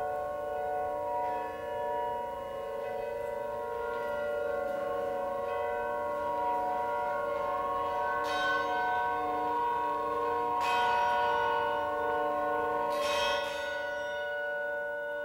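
Struck metal instruments ringing in several long, overlapping tones. Fresh strikes come about eight, eleven and thirteen seconds in, each adding a bright metallic attack over the sustained ring.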